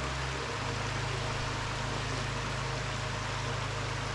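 Small woodland waterfall rushing steadily, its flow swollen after rain.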